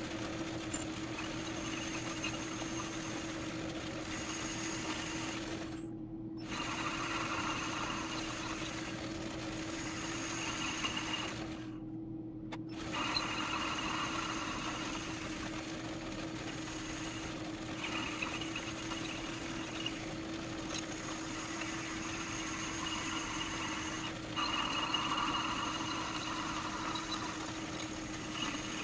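Metal lathe running with a steady hum while a boring bar cuts an internal taper inside a part spinning in a four-jaw chuck. The higher-pitched cutting noise drops out briefly three times, about 6, 12 and 24 seconds in, while the hum carries on.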